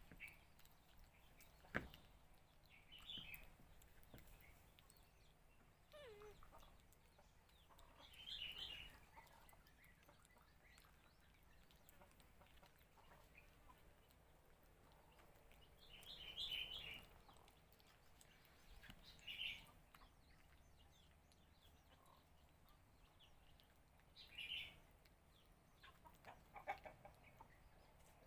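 Faint, short high-pitched animal calls, a few chirps at a time, coming every few seconds over a quiet background, with one sharp knock about two seconds in.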